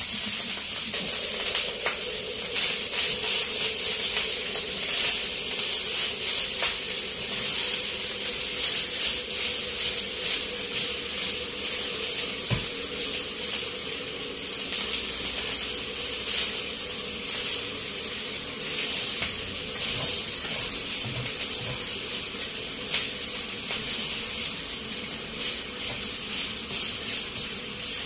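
Cold leftover rice sizzling as it fries in a pan on a gas burner, a steady hiss with small ticks and scrapes as a spatula stirs and turns it.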